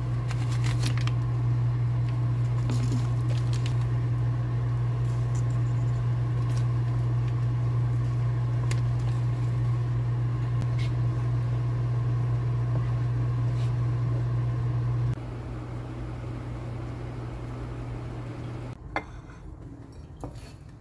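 A kitchen appliance motor hums steadily and low, with a fainter higher tone over it and a few light clicks. The hum drops in level about two-thirds of the way through and falls away near the end.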